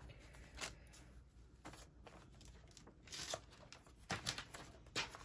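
Sublimation transfer paper and butcher paper rustling and crinkling as they are handled, in several short scattered rustles.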